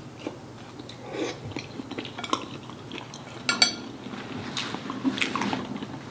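Eating at close range: a utensil clinking and scraping against a dish several times, with chewing and biting between.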